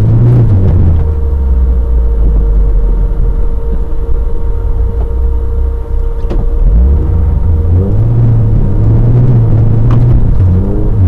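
Off-road vehicle engine running under load, its revs rising and falling as it climbs over rough, muddy ground, with a deep, loud rumble throughout.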